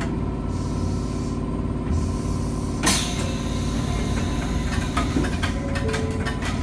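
Electric commuter train standing still with its onboard equipment humming steadily. There is one sharp click about three seconds in, then a run of lighter clicks and knocks.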